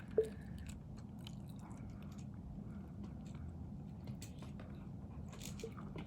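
Faint handling noise: scattered small clicks and crunches, with one sharper click just after the start, over a low steady background hum.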